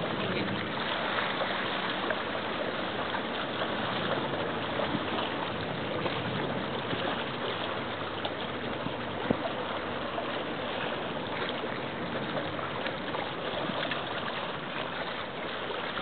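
Steady rushing noise of wind and water, with the distant launch's engine and wake not standing out on their own; one brief sharp tick about nine seconds in.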